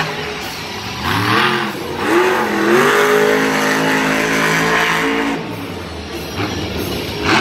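Monster truck's supercharged V8 engine revving, its pitch climbing for the first few seconds, held high, then dropping away about five seconds in.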